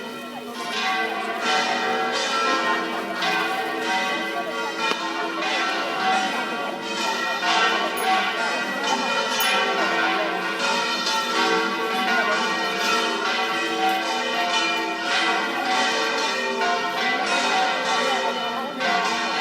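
Seville Cathedral's church bells ringing in a full peal, many bells struck in quick succession with their tones overlapping and ringing on.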